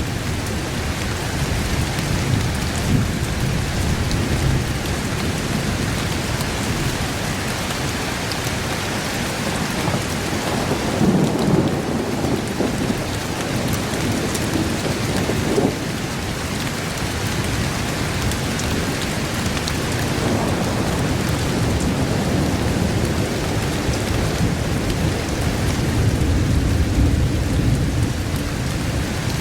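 Steady heavy rain falling on a surface, with low rolling thunder rumbling underneath and swelling a little before the middle.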